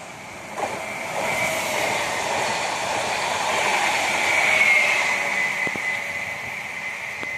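Passenger train hauled by an electric locomotive approaching on the main line, its running noise swelling to a peak a little before five seconds in and then easing. A steady high tone runs through the noise.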